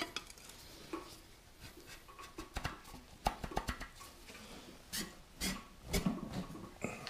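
Scattered light metallic knocks and clinks as a new steel cylinder sleeve is handled and set by hand into a bore of a Farmall Super M engine block, the steel knocking against the cast-iron block.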